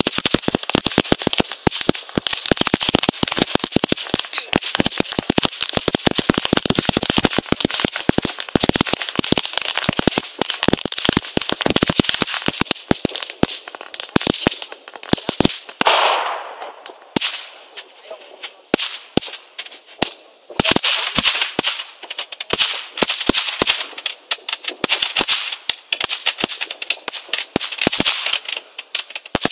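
Fireworks crackling: dense runs of rapid pops and crackles. They thin out about halfway through, with a brief hiss, then grow dense again.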